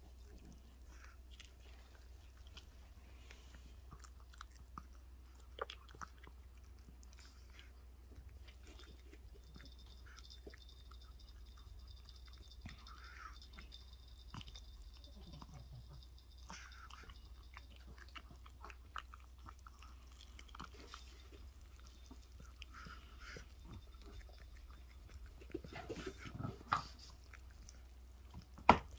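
A dog chewing and biting into raw chicken: wet, faint chewing with small crunches, which grow louder and more frequent near the end.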